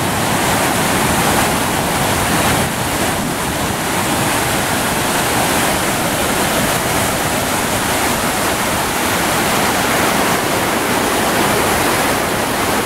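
River floodwater pouring over a concrete weir and churning below it: a loud, steady rush of falling white water, the river running high after heavy rain.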